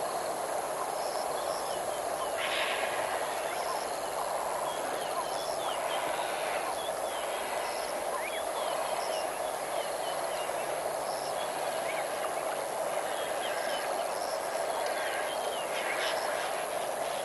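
Outdoor river-bank ambience: a steady rush of flowing water with scattered short, high chirping calls throughout.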